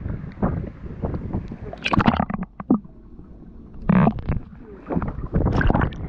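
Water splashing and sloshing against a camera held at the surface, in irregular splashy bursts. In the middle there is a duller, muffled stretch as it dips under water, and the splashing returns as it comes back up.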